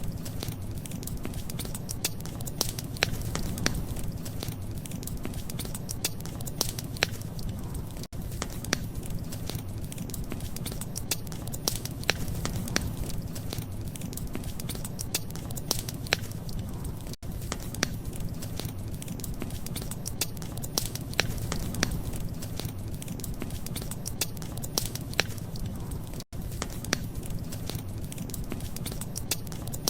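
Wood fire crackling: sharp, irregular pops and snaps over a steady low rumble. The sound cuts out for an instant three times, about every nine seconds.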